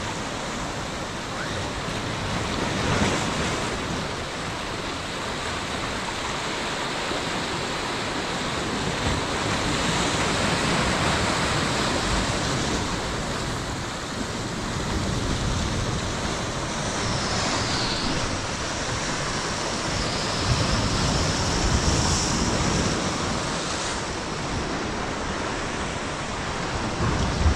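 Ocean surf washing in over shoreline boulders: a steady rushing wash that swells and eases as the waves come in.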